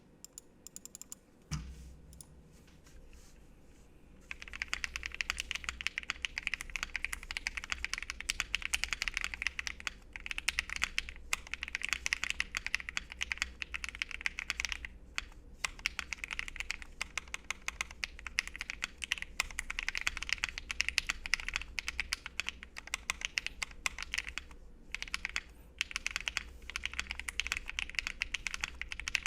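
Typing on a Tofu60 mechanical keyboard in O-ring gasket mount, with Krytox-lubed Creameron switches, a brass plate and PBT keycaps. A few isolated key presses and one low thump come first; fast, continuous typing begins about four seconds in and runs on with brief pauses.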